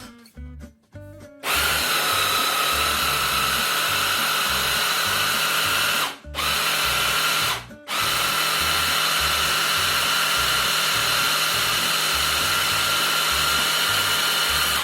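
Electric blender running, mixing eggs, banana and oats into pancake batter. It starts about a second and a half in with a steady whine and cuts out briefly twice near the middle.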